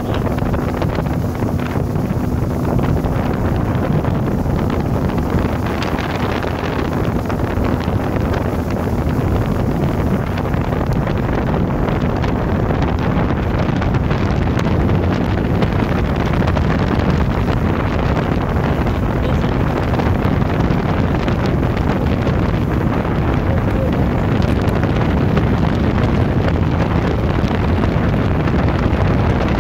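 Loud, steady wind noise buffeting the microphone of a motorboat under way at speed, with the boat's motor running beneath it.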